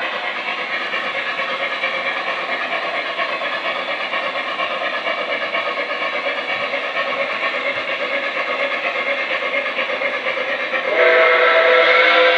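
An S gauge Lionel Flyer Berkshire model steam locomotive running on its test track, with its onboard sound system playing steady steam-engine running sounds. Near the end a loud, steady steam whistle blast sounds out.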